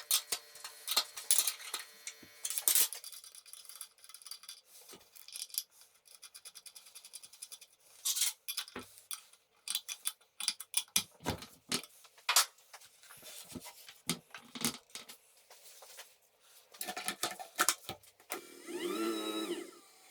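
Irregular metallic clicks, knocks and scrapes of metal parts being handled and worked. Near the end a small electric motor whines, rising in pitch and falling back.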